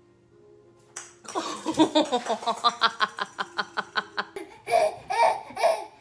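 Baby laughing, starting about a second in with a rapid string of short belly-laugh pulses, then three louder laughs near the end.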